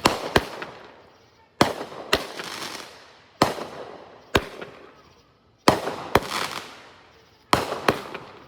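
Fireworks going off in a string of sharp bangs, about five volleys a couple of seconds apart. Most volleys are two bangs in quick succession, each followed by a crackling hiss that fades away.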